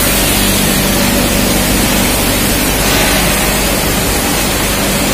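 Steady din of running machinery on an engine-valve factory floor: an even hiss with a faint low hum underneath.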